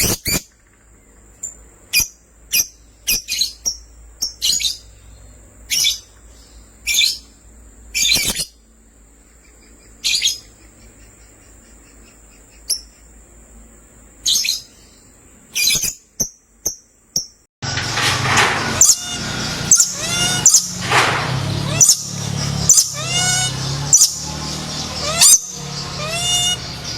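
Lovebirds chirping: sharp, high single chirps with pauses between them, then from about two-thirds of the way in a busier, denser run of rapid chirps over a louder background.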